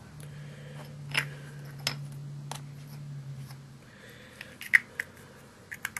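Scattered light clicks and taps from handling a small plastic eyeshadow container, the sharpest near the end, over a low steady hum that stops a little past the middle.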